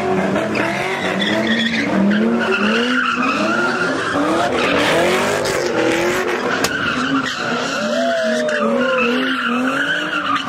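Cars doing donuts: tyres squealing in a continuous high screech while the engine revs rise and fall over and over, about every half second.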